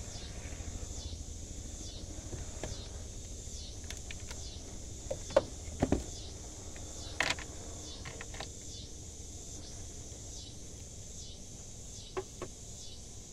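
Light metallic clicks and clinks of bolts, nuts and a socket being handled while an intake manifold is fastened by hand, several in the middle and two near the end, over a steady high-pitched hiss.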